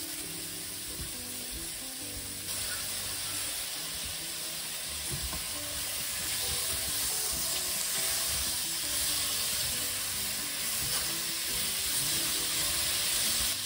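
Tomatoes, onions and mushrooms sizzling in hot oil in a stainless steel pot, stirred with a silicone spatula. The sizzle steps up a little about two seconds in.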